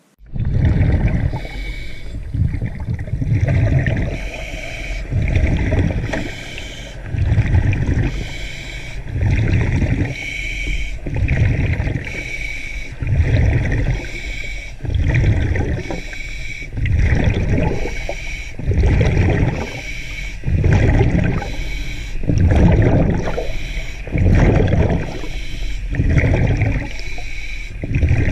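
Underwater water noise, gurgling and sloshing in a steady rhythm that swells about every second and a half.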